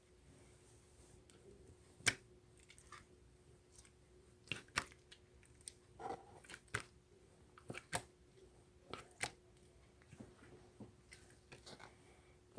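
Irregular faint clicks and taps, the loudest about two seconds in, over a steady low hum.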